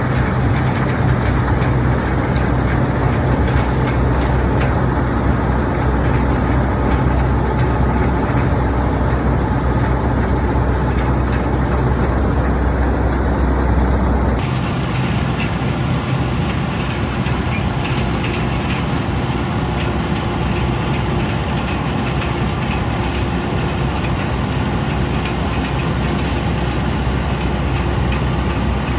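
Fortschritt E514 combine harvester's diesel engine running steadily up close while the machine cuts, a loud continuous drone with a low hum. The sound changes abruptly about halfway through.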